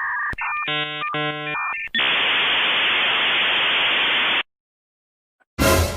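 Dial-up modem connecting: a steady two-note tone, then a run of buzzy electronic beeps, then about two and a half seconds of hissing static that cuts off suddenly.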